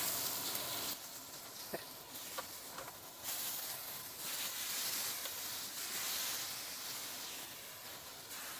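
Chicken strips sizzling in butter and oil in a stainless steel pan, a steady hiss that rises and falls in level as the pieces are turned with metal tongs, with a couple of light clicks of the tongs on the pan in the first few seconds.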